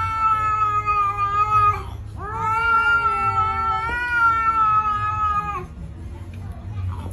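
Grey cat yowling at another cat in a quarrel: long, drawn-out calls held at a steady pitch. One call ends about two seconds in, and a second lasts about three and a half seconds, stopping well before the end.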